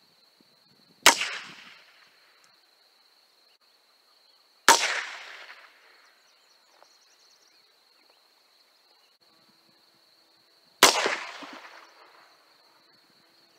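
Three .22 rimfire gunshots from a Heritage Rough Rider single-action revolver, the first a .22 Short, spread over about ten seconds. Each is a sharp crack that trails off over about a second.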